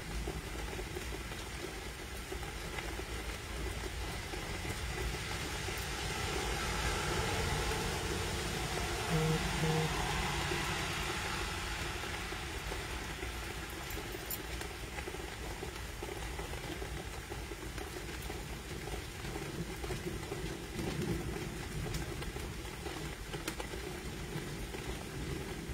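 Steady rushing noise of a night thunderstorm's wind and rain, swelling a little in the middle. Two short low tones sound about nine seconds in.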